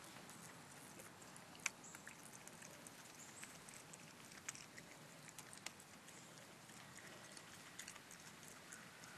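Faint scattered clicks and scratches of a raccoon pawing at and pulling pulp out of a hollowed-out pumpkin and eating it, with a few sharper clicks among them.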